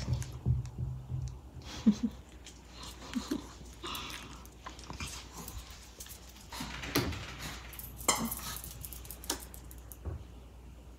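A Maltese dog moving about on a wood-look floor: scattered light clicks and short rustling noises.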